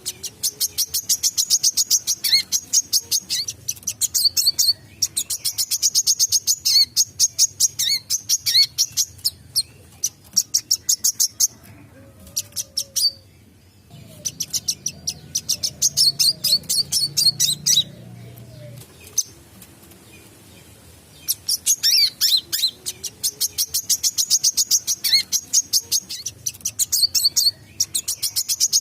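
Wiceh sunbird singing in long runs of very fast, sharp, high chirps, broken by short pauses about halfway through and again after about 19 seconds. This is the continuous 'gacor' singing keepers use to train other songbirds.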